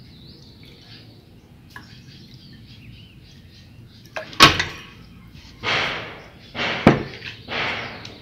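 A metal ladle knocking against a large aluminium stockpot while broth is served, with a sharp clack about four and a half seconds in, followed by a few short scraping and shuffling noises and another sharp knock as the plate is set down.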